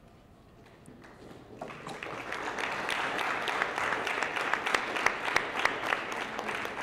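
Audience applauding, starting about a second and a half in and quickly building to a steady patter of many hands clapping.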